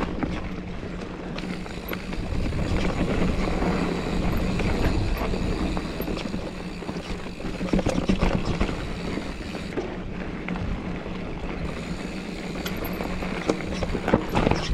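Mountain bike riding over a rough dirt trail: a steady rush of tyre and wind noise with frequent small clicks and rattles, and a steady hum underneath.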